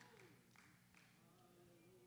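Near silence: a few faint hand claps in the first second, then quiet room tone.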